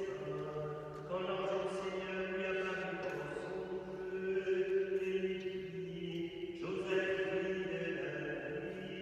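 Liturgical chant sung by voices holding long notes that step from one pitch to the next, with a short break between phrases about six and a half seconds in.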